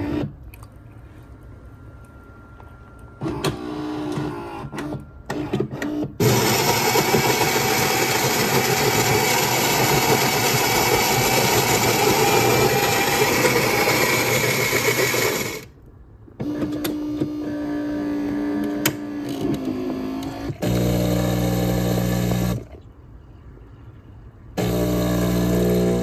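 Philips 3200 automatic espresso machine making a coffee: its built-in grinder runs loudly for about ten seconds, then a quieter whirring follows, then the pump buzzes in two spells as it starts pushing water through the coffee.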